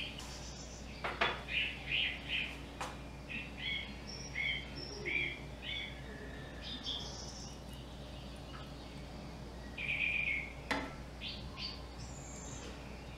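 Small birds chirping in short repeated calls, with a few sharp clicks among them.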